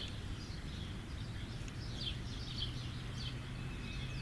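Small wild birds chirping in short, scattered calls over a steady low hum.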